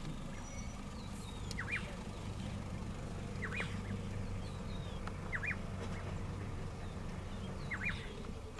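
A bird calling four times, about every two seconds, each call a quick pair of sharp notes, over a steady low hum.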